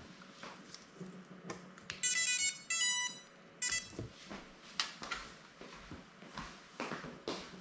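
A small FPV drone's motors beep out the speed controllers' startup tones about two seconds in, a quick run of electronic beeps lasting under two seconds that signals the drone has just been powered up from its battery. Light clicks and taps of the drone being handled on the bench come before and after the beeps.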